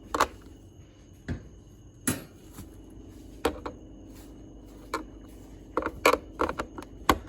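Irregular clicks and knocks of a plastic Nerf blaster being taken apart: a screwdriver working tiny screws and plastic parts and screws being handled and set down, about ten sharp taps, several close together near the end, over a faint steady hum.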